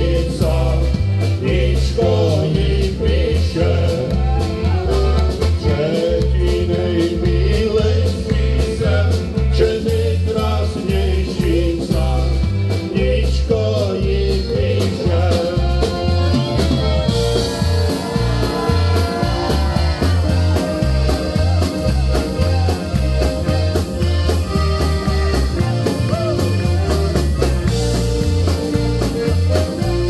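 Live polka band playing: several accordions over a steady bass and drum beat. There is singing in the first half, and from about seventeen seconds in the accordions carry the tune alone.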